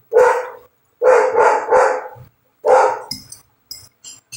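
A dog barking five times: one bark, a quick run of three, then one more. Near the end, a fork clicks lightly against a plate.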